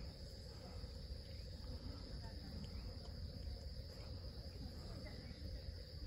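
Steady, high-pitched drone of insects over a low rumble.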